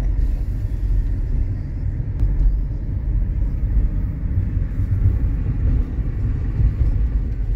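Road noise of a moving car heard from inside the cabin: a steady low rumble of engine and tyres.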